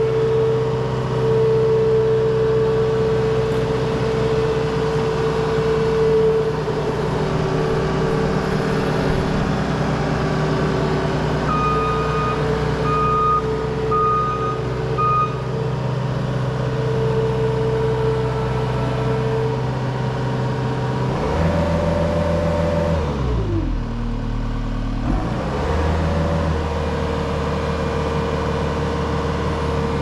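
New Holland L228 skid steer's diesel engine running steadily at speed, with four short high beeps about halfway through. Around two-thirds of the way in, the engine speed drops sharply, stays low for about two seconds, then rises back to its steady running speed.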